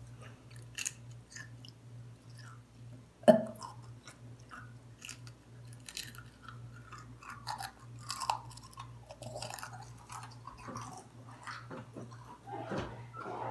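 A person chewing a chewy, stretchy food, with many small wet mouth clicks and smacks. One sharp, loud knock about three seconds in, over a steady low hum.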